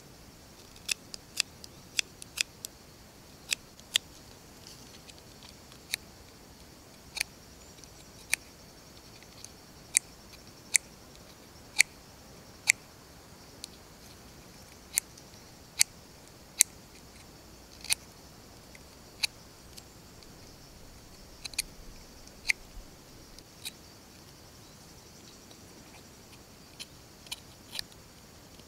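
Knife blade cutting small chips from the tines of a wooden fork being carved: sharp, irregular clicks and snaps, roughly one a second, with quieter stretches between.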